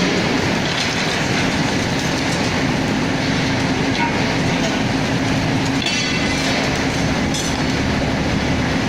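Excavator's diesel engine running steadily under load, with rattling and clattering from the demolition grab at work and a brief high squeal about six seconds in.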